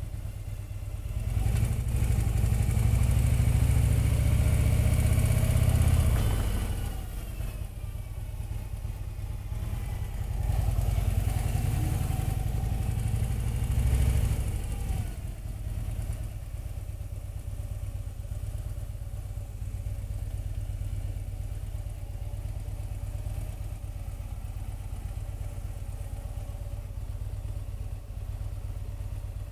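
Harley-Davidson touring motorcycle's V-twin engine pulling away at low speed twice, rising in pitch and louder about two seconds in and again about ten seconds in, then running steadily at low revs.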